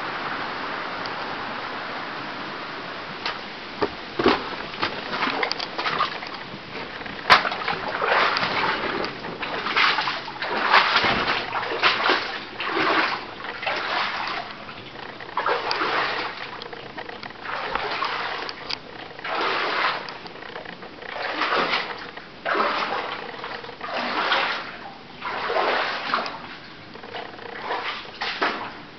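Footsteps wading through water on a flooded mine gallery floor, a splash with each step, about one a second. There is a steady rushing hiss in the first few seconds and a few sharp knocks before the wading starts.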